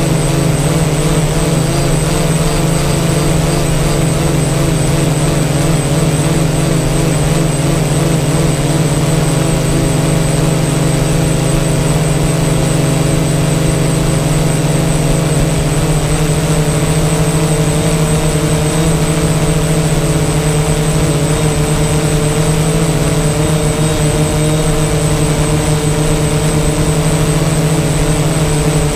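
DJI Phantom quadcopter's four electric motors and propellers, heard from the GoPro mounted on it: a loud, steady buzz with a thin high whine over it. The pitch of the upper hum wavers for the first several seconds, then holds steady as the drone hovers.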